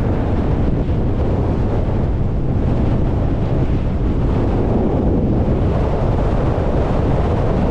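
Wind buffeting the camera microphone: a loud, steady rushing noise, heaviest in the low end, with no separate events.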